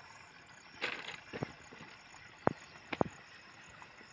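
Water glugging out of a plastic bottle into the fill hole of a submersible pump motor, filling the motor with water before it is installed. There are several short, sharp glugs, the loudest about two and a half and three seconds in.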